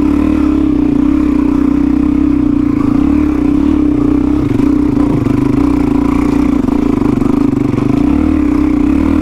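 Suzuki DR-Z400 dual-sport motorcycle's single-cylinder engine pulling up a steep dirt hill, held at steady revs under load.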